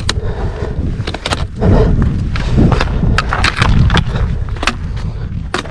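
Trekking pole tips clicking sharply on rock, together with boots crunching over loose scree, in irregular strikes a little over one a second. Under them, a heavy low rumble of wind on the microphone.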